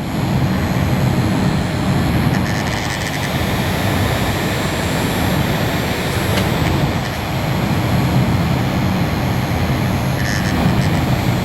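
A steady, loud rushing whoosh with a low rumble underneath, unchanging until it cuts off abruptly.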